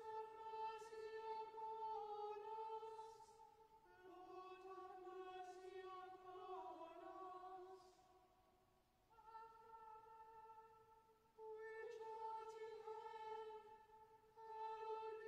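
Choir singing chanted phrases quietly in slow, held notes, with short breaks between phrases; the middle phrase sits lower and slides down near its end.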